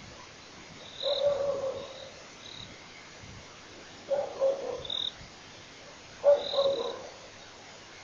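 Animal calls: three short, rough croaks, each under a second long and two to three seconds apart, each with a brief high chirp.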